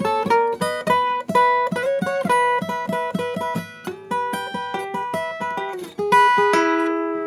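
Acoustic guitar playing an instrumental passage of quick picked notes, with a chord struck about six seconds in and left to ring out.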